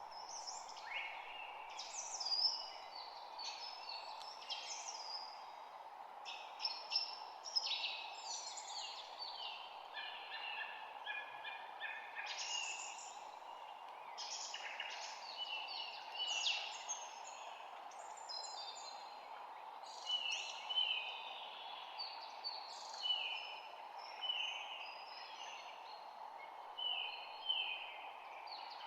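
Spring birdsong: several birds chirping and trilling at once in a dense, overlapping chorus, over a steady background hiss.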